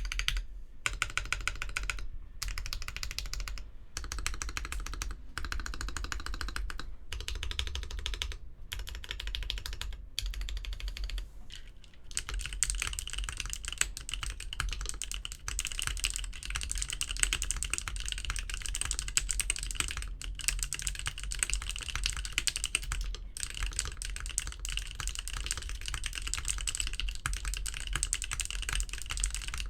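Typing on a KBDfans D45 mechanical keyboard with tactile SP Star Magical Girl switches on a brass plate, DSA PBT keycaps and case and plate foam. Bursts of keystrokes with brief pauses, then faster, unbroken typing for the second half.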